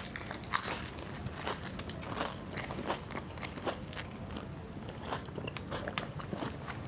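A person chewing crisp, batter-fried chili fritters (mirchi pakoda): many small, irregular crunching crackles.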